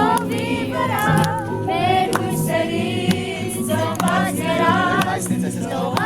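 Music with singing voices, several voices together over a steady instrumental backing.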